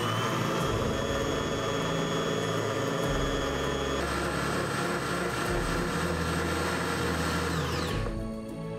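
Countertop blender motor running at high speed, grinding chunks of onion and pear with fish sauce into a smooth liquid. Its whine changes pitch about four seconds in, and the motor winds down with a falling whine near the end.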